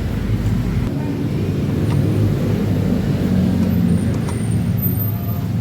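Steady low engine rumble of a motor vehicle running, with a few faint clicks.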